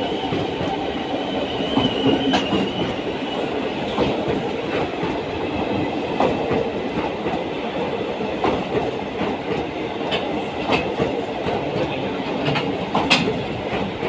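Express passenger train running through a station at speed: a steady rolling rumble of coaches going past, with sharp wheel clacks over rail joints every couple of seconds.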